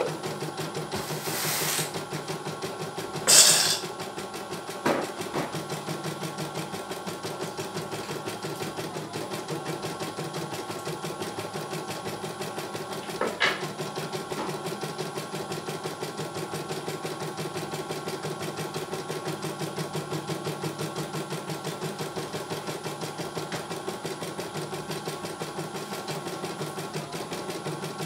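CNY E900 computerised embroidery machine stitching a design, a steady rapid run of needle strokes as the hoop carries the fabric. A short loud hiss comes about three seconds in, with a couple of sharp clicks around five and thirteen seconds.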